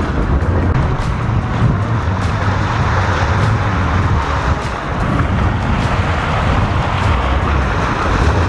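Steady wind noise on the microphone over sea surf washing against the rocky shore.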